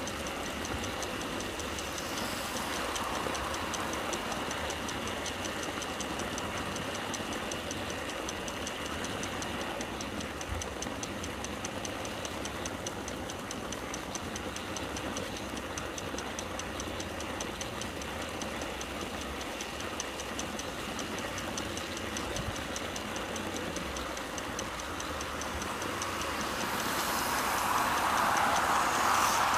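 Garden-railway model train running, heard from on board: a steady rolling rumble with fast, even clicking of the wheels over the rail joints and a faint steady whine. Over the last few seconds the noise swells as a second model train passes on the next track.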